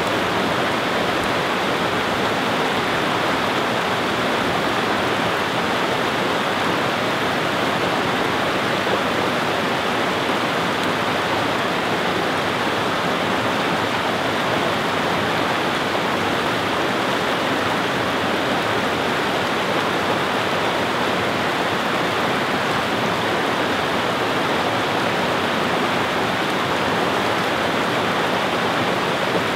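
Shallow rocky stream rushing over flat rock ledges in small rapids: a steady, unbroken rushing of water.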